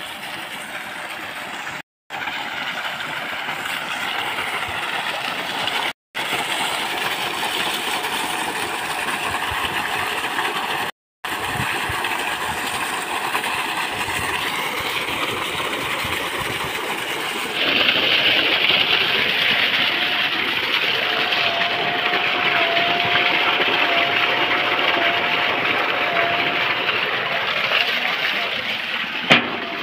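A 2 hp solar-powered 3x3-inch centrifugal pump running at full flow: water rushes steadily from its discharge pipe over the pump's motor noise. Past the middle the sound grows louder, with a faint steady whine. The sound drops out briefly three times early on, and there is a single click near the end.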